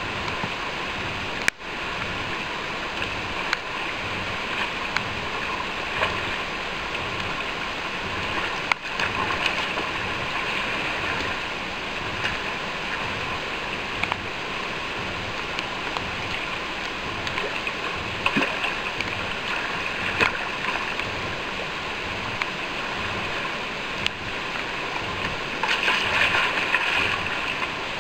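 Fast river water rushing steadily over rocks, with two sharp clicks, one early and one about nine seconds in.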